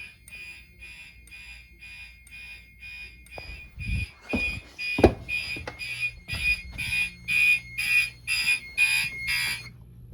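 Fire alarm horn sounding in alarm, a high pulsing tone about three times a second, with a few knocks around four to five seconds in. The alarm is set off by a smoke detector under test. The pulses grow louder about four seconds in and stop suddenly near the end.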